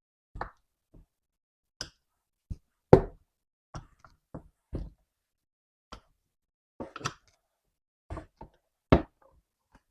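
Motorcycle tire bead knocking and popping off the rim's safety bead as the tire is pressed in a vise, about fifteen separate pops and knocks at irregular spacing. The loudest comes about three seconds in, with another strong one near the end.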